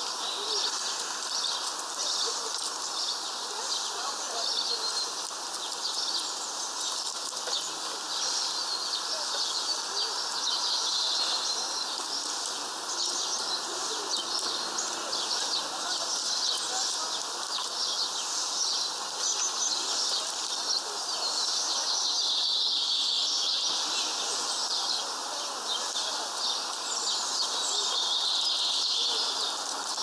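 Small songbirds chirping and twittering without pause, a dense run of short high calls, growing louder about two-thirds of the way through and again near the end.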